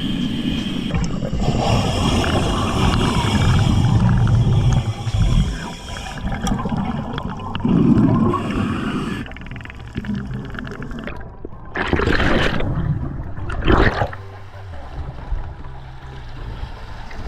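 Underwater sound of a scuba diver breathing through a regulator: a low rumbling wash, with two short rushes of exhaled bubbles about two-thirds of the way through.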